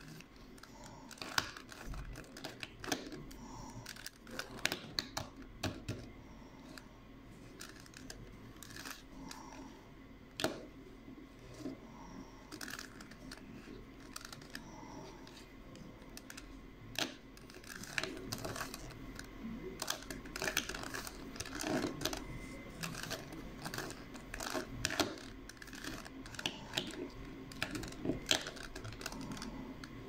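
A plastic 3x3 Rubik's cube being turned by hand, its layers clicking and rasping in quick, irregular runs. The turning gets busier about halfway through.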